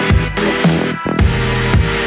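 Electronic background music with a steady beat and deep bass. It drops out for a moment about a second in.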